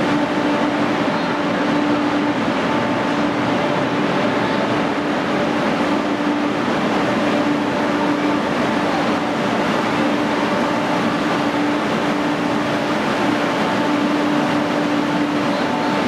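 Steady hum and rushing noise from parked Amtrak passenger cars with their power on, a constant low drone over an even noise.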